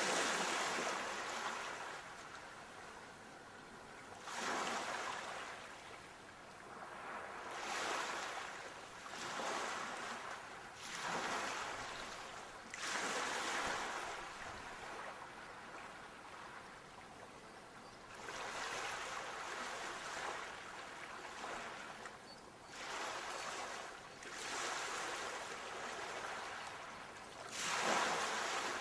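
Sea waves washing onto a shore: a surge of surf every few seconds, each one swelling and then fading away.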